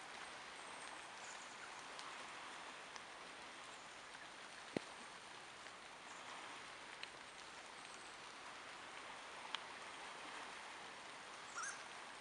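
Faint, steady hiss of water, with a few sharp clicks, the loudest about a third of the way in, and a brief higher sound near the end.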